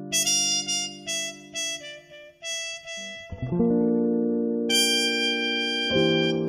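Instrumental intro of a slow Mandarin ballad: a run of plucked-string notes, then sustained chords swelling in about three seconds in.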